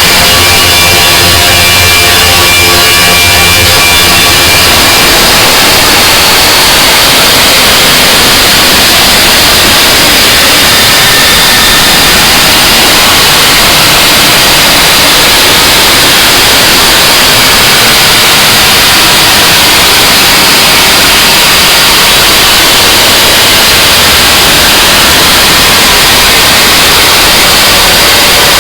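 Harsh noise wall music: loud, dense static with no beat or melody. A few faint sustained tones sit in the static for the first four or five seconds, then it settles into an unchanging wall of noise.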